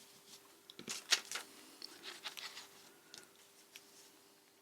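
Stencil brush dabbing and scrubbing ink through a stencil onto paper, a few short, faint scratchy strokes.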